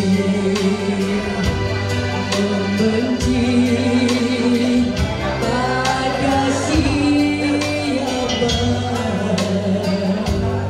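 A woman singing a slow pop song into a microphone over instrumental accompaniment with a steady beat.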